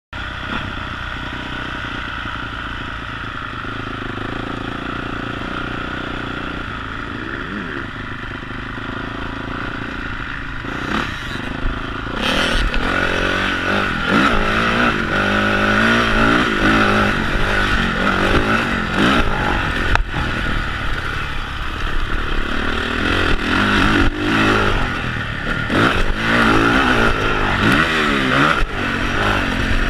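Honda CRF450 four-stroke single-cylinder motocross engine through a Yoshimura twin exhaust. It runs steadily at first, then from about twelve seconds in it is louder and revs up and down again and again as the bike is ridden hard around the dirt track.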